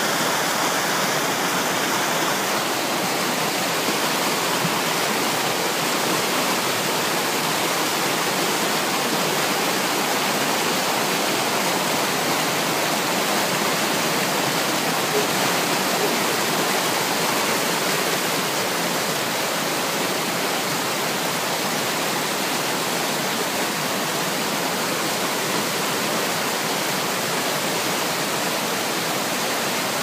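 Spring-fed mountain waterfall tumbling over mossy rocks: a steady, even rush of white water.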